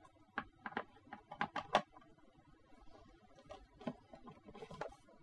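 Short clicks and knocks from the casing of a Bang & Olufsen Beoplay A2 speaker being handled and pressed back together, a quick run of clicks in the first two seconds and a few fainter ones later.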